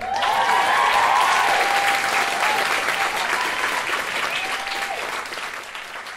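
Audience applauding at the end of a stage musical number, with a few whoops of cheering early on; the applause starts at once and gradually dies away.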